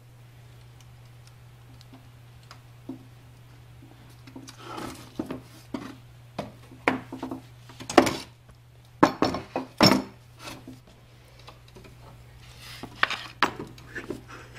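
Clanks and knocks of hand tools and heavy blocks being moved and set down, starting about four seconds in, with several sharp metallic clinks, over a steady low hum.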